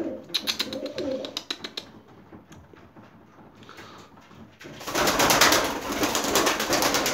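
Tumbler pigeon's wings flapping loudly in quick beats as it takes off and flies about the loft, starting about five seconds in. Lighter, sharp wing flutters come in the first couple of seconds.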